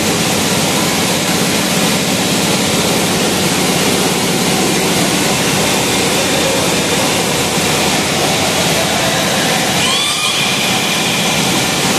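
Steady, loud machinery noise of a factory floor, an even roar with no rhythm, with a few short squeaks about ten seconds in.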